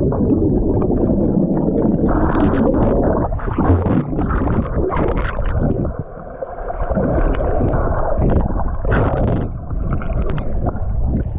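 Rushing, gurgling water heard muffled, as through a submerged waterproof camera, with sharper splashes now and then.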